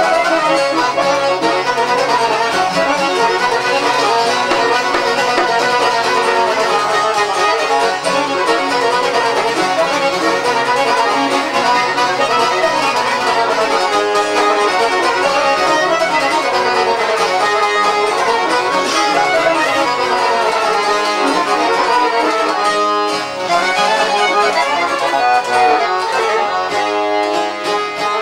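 Albanian folk music with violin and accordion, playing continuously.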